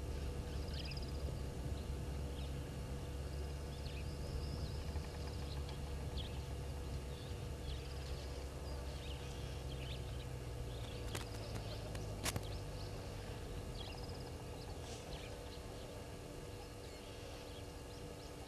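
Outdoor waterhole ambience: small birds chirping now and then over a steady low rumble and a faint steady hum, with two sharp clicks about halfway through.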